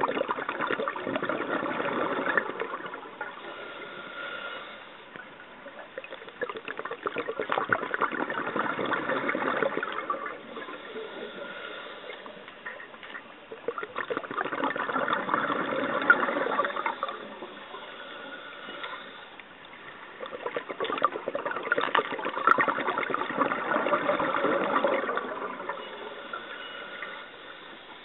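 Scuba diver breathing through a regulator, heard underwater: four long rushes of exhaled bubbles, crackling and gurgling, a few seconds apart, with quieter stretches between them as the diver inhales.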